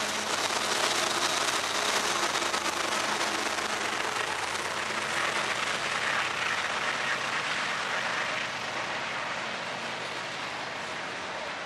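Freight train rolling past: a steady rushing of steel wheels on the rails as the trailing locomotive and then the freight cars go by, easing a little after about eight seconds.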